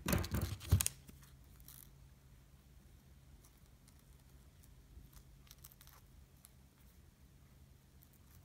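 Fingers handling loose cassette tape at an opened compact cassette: a brief crinkling rustle in the first second, then a few faint light clicks near the middle, over a faint low hum.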